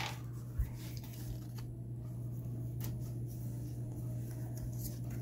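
Pokémon trading cards being handled and slid against one another, giving a few faint ticks and a soft thump about half a second in, over a steady low hum.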